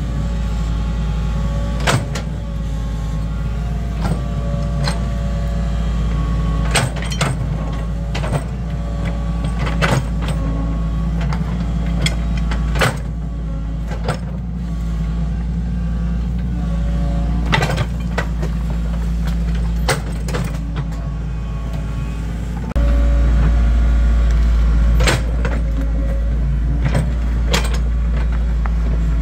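Excavator's diesel engine running, its load and level stepping up and down several times, with repeated sharp metallic clanks from the machine at work.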